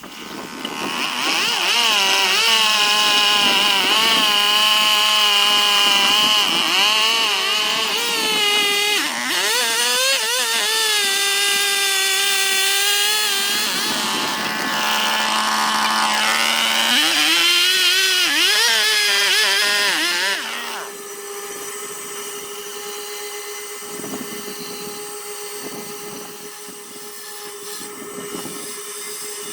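Small high-speed rotary carving tool running and cutting into wood, its whine dipping and wavering in pitch as it bites. About 21 seconds in it gets quieter and holds a steady pitch, running lighter.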